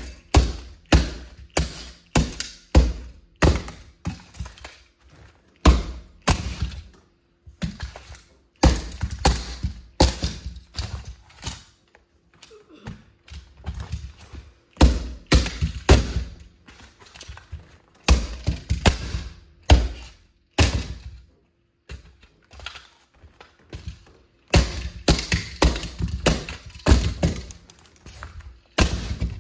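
Platform high heels stamping and grinding down on a plastic Plymouth Prowler model car: a rapid, irregular run of thunks and knocks with plastic cracking and snapping as the body breaks apart, pausing briefly a couple of times.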